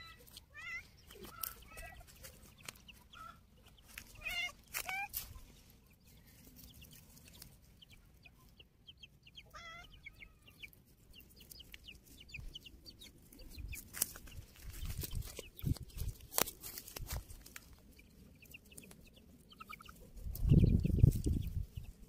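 Domestic hens clucking in short, scattered calls, with a few sharp clicks and a loud low rumble near the end.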